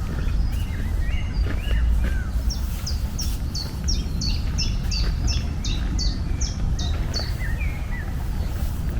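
A songbird singing a quick, even run of about a dozen high, downward-slurred notes, with other birds chirping around it, over a steady low rumble.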